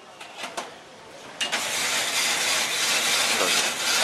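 Shaved-ice machine shaving a block of ice: a few light clicks, then about a second and a half in, a sudden steady grinding hiss that holds on.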